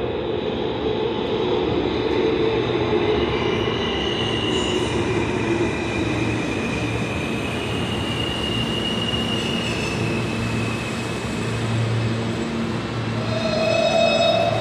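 R160 subway train pulling into the station and braking to a stop: steady rumble of wheels on rail with high wheel squeals that come and go, then a short squeal of the brakes near the end as it halts.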